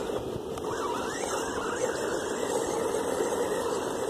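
Electric motor and drivetrain of a 1/12-scale two-wheel-drive RC truck whining, the pitch rising and falling with the throttle, over a steady hiss.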